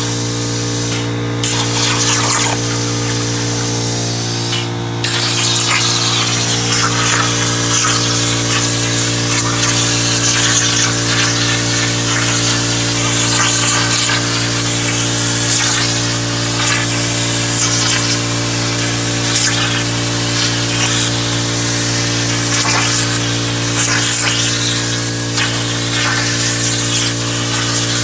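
Hypertherm 45XP plasma cutter on a CNC table cutting metal: a steady hiss of the arc and air over a constant electrical hum. The hiss stops briefly twice in the first five seconds, where the arc goes off between cuts.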